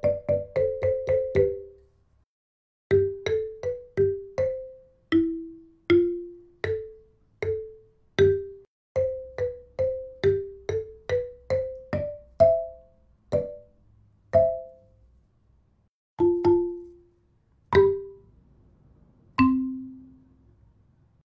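Instrumental music: a melody of single struck notes with a chime-like tone. A quick run of notes opens it, then, after a short pause, notes come about two a second. They slow near the end and close on a low, ringing final note.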